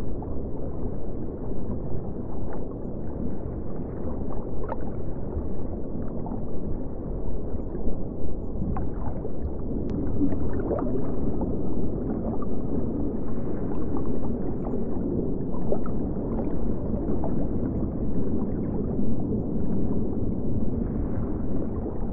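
Steady muffled low rumble of room ambience in front of a large reef aquarium, with a few faint ticks scattered through it.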